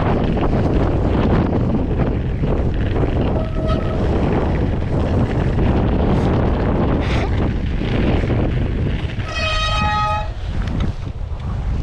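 Strong wind buffeting the microphone without a break. A short, faint high tone comes a few seconds in, and a louder high-pitched, whistle-like tone lasting about a second comes near the end.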